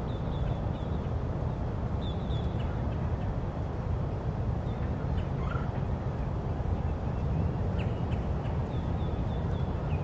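Waterfront park ambience: a steady low rumble with scattered short, high bird calls in little runs of notes, a few times.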